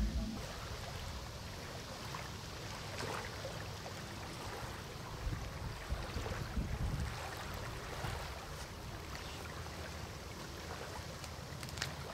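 Outdoor riverbank ambience: wind noise on the microphone with river water lapping at the shore, and a few faint clicks.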